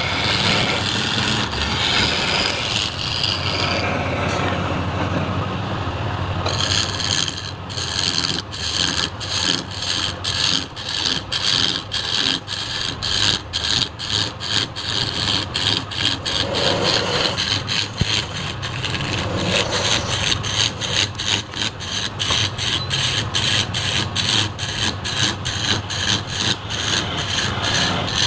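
Turning chisel cutting into a spinning wooden workpiece on a lathe, a continuous scraping cut at first, then changing about six seconds in to rapid repeated scraping strokes, about two to three a second. A steady low hum of the lathe runs underneath.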